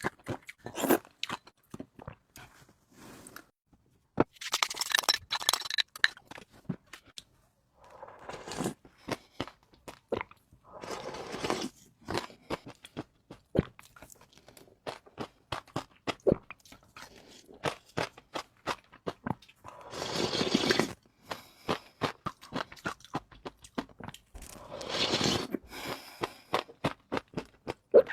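Close-up eating sounds: wet chewing with many sharp crunches and mouth clicks. Four longer noisy stretches come about a fifth, two fifths, three quarters and nine tenths of the way through.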